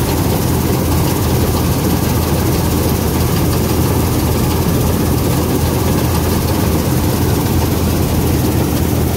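International Harvester 321 combine harvester running steadily under load while cutting wheat: engine and threshing machinery make a loud, even low hum that does not change.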